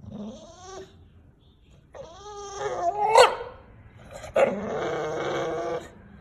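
English bulldog vocalizing in pitched, drawn-out 'talking' sounds. There is a short one at the start, a rising one that peaks sharply about three seconds in, and a longer held one near the end.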